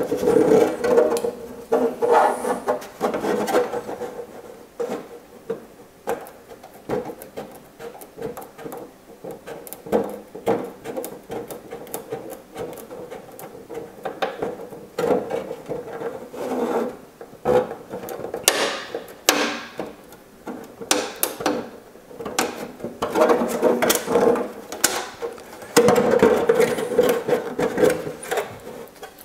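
Curved body scissors snipping through a clear polycarbonate RC car body shell in short, irregular cuts as a wheel arch is nibbled out, with the thin plastic rubbing and scraping as it is handled.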